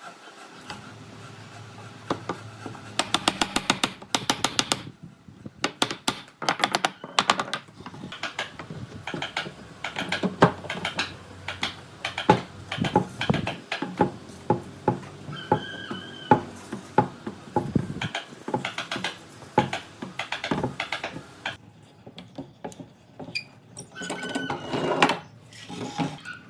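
Irregular sharp taps and clattering knocks, with fast runs of rapid clicks a few seconds in and again a little later, typical of hand work on wood.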